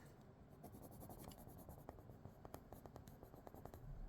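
Colouring pencil scratching faintly on paper in quick, short shading strokes, several a second.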